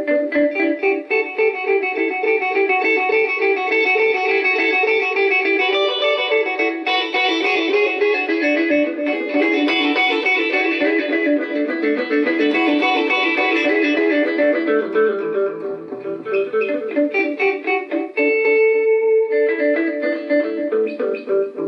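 Hollow-body electric guitar played in a steady stream of picked notes and chords through a freshly repaired Electra EP-401 DRAM digital delay. The playing thins briefly about eighteen seconds in, then a new chord rings out.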